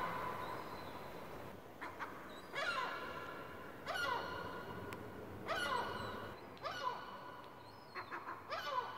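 Herring gull calling: a series of short cries that slide down in pitch, about one every second or so.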